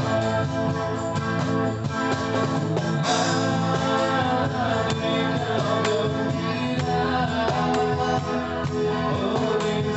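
A live busking band playing a song: sustained chords from guitar and other instruments, with percussion keeping a steady beat.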